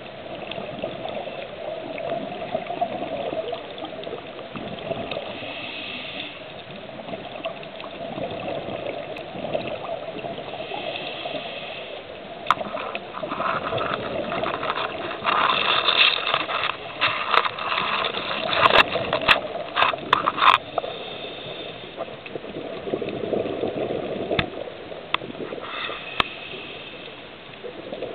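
Steady rushing water, with a run of sharp clicks and knocks about halfway through.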